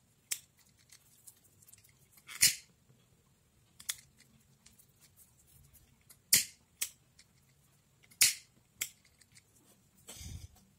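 A lighter being struck over and over: about eight sharp clicks at uneven intervals, a few with a brief rasp after them, as the flame is relit to heat-seal a wrap around a frayed charger cable.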